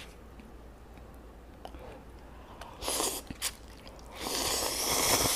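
Instant cup ramyun noodles slurped from the bowl: a short slurp about three seconds in, then a longer, louder one near the end. Before them, quiet chewing with a few small clicks.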